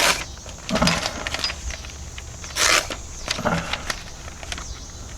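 Knife blade slicing through paper in a few short rasping strokes, a paper-cutting test of a freshly sharpened OTF knife edge.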